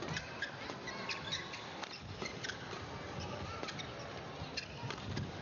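Badminton rally: court shoes squeaking sharply on the court mat as the players lunge, with the crisp smack of rackets hitting the shuttlecock several times, over a steady murmur of the crowd.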